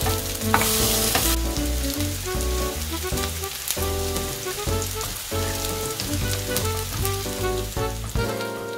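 Enoki mushroom pancakes sizzling in hot oil in a nonstick frying pan, with a louder burst of sizzling about a second in as fresh batter goes into the pan. Light background music with a steady bass line plays over it.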